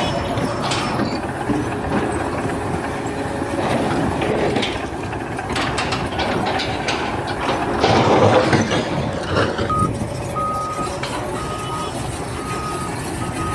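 Noisy construction-site machinery with scattered knocks, loudest about 8 seconds in. From about 10 seconds in, a vehicle's reversing alarm beeps at an even pace.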